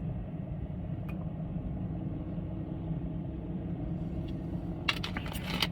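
Steady low hum of a car idling, heard from inside the cabin, with a few faint clicks near the end.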